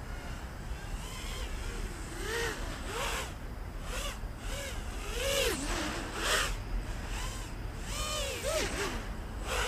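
Diatone GT-M515 5-inch racing quadcopter's brushless motors and Master Airscrew three-blade propellers whining, the pitch swooping up and down again and again as the throttle is punched and eased, loudest in the middle and near the end.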